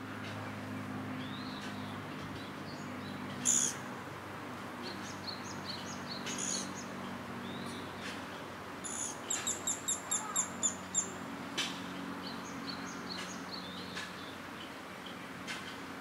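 Small birds chirping: scattered short high calls, then a quick run of about eight high descending notes near the middle, over a steady low hum and ambient background noise.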